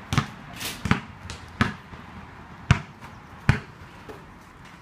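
A basketball bouncing on concrete: about six separate, irregularly spaced bounces, ending about a second before the end.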